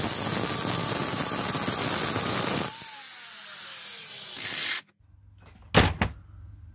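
Small angle grinder grinding a steel lawnmower blade clamped in a vise, taking metal off the heavy side to balance it; a little over halfway through its pitch drops as it bites under load. The grinding cuts off suddenly, followed by two sharp knocks.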